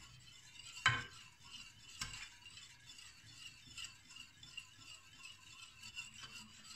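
Pudding mixture being stirred in a pot: light, irregular scraping and clinking against the pot, with one sharper knock about a second in.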